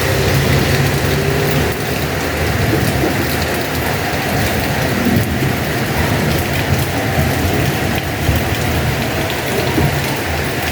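Heavy rain falling steadily. A passing vehicle's engine fades out in the first two seconds.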